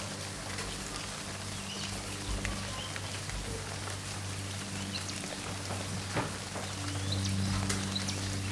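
Steady rain falling, with scattered drops ticking on a surface, over a low steady hum.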